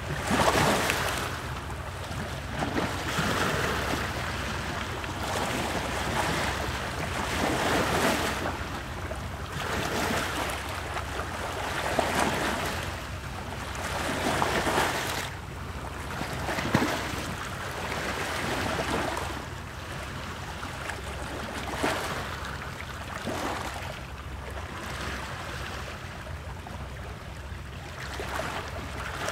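Ocean waves breaking and washing in, the surf surging and ebbing every two to three seconds over a steady low rumble.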